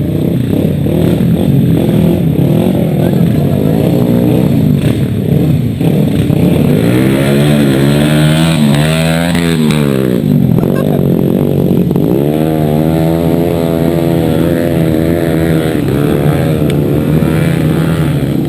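Trail motorcycle engine running while riding, its revs repeatedly rising and dropping as the throttle is worked.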